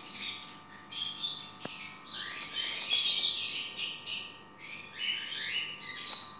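Lovebirds chirping: a steady stream of short, shrill, high-pitched chirps and chatter, in quick groups with brief pauses between them.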